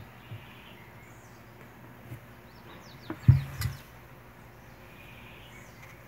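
Small birds chirping faintly in the background. A little past halfway, a fork knocks and then clinks against a glass plate.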